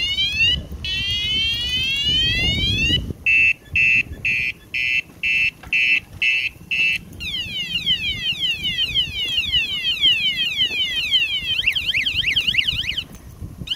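Loud battery-powered electronic bicycle horn cycling through its siren tones while the button is held down. First come two long rising wails, then about eight short beeps at roughly two a second starting about three seconds in, then a fast up-and-down warbling yelp that cuts off near the end.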